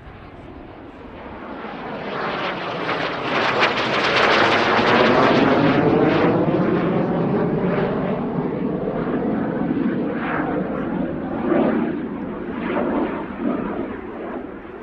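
Jet Provost's Viper turbojet making a display pass: a rushing jet noise with a sweeping, phasing quality that swells to its loudest about four seconds in, then slowly fades with smaller swells.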